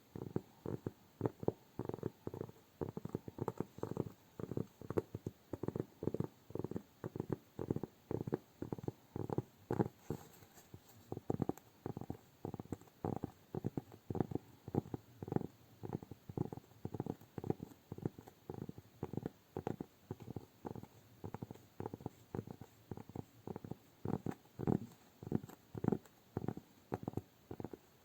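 Fingers tapping and patting close to the microphone for ASMR: soft, dull taps in quick, irregular runs of a few a second.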